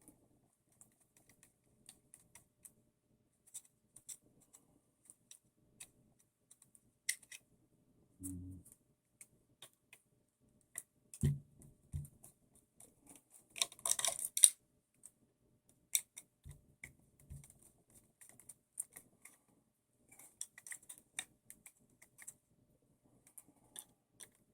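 Sporadic light clicks and taps of small plastic and metal RC buggy parts and hand tools being handled during reassembly. There are a few dull thumps, and a brief louder rattle about halfway through.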